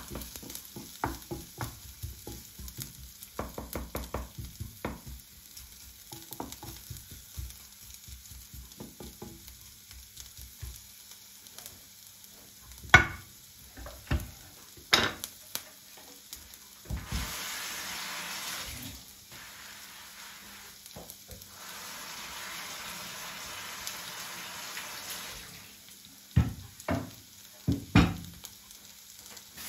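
Food frying in a pan, crackling and popping, with several sharp knocks about halfway through and again near the end. Two stretches of steady hiss lie between the knocks.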